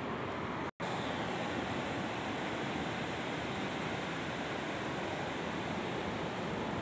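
Steady rushing noise of surf and wind on the microphone at a beach, with no motor whine standing out. A brief gap of complete silence falls just under a second in.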